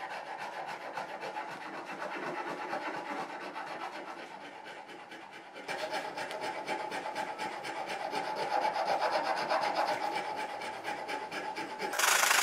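Sandpaper rubbed rapidly back and forth over a wooden knife handle in quick, even strokes: hand-sanding to shape and smooth the handle. The strokes grow louder about halfway through.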